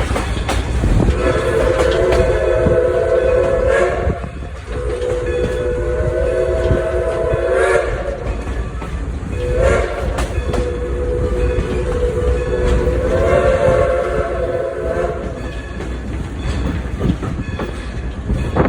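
New Hope Railroad Engine 40's chime whistle sounding the grade-crossing signal: two long blasts, a short one and a final long one, over the steady rumble and wheel clatter of the passing train.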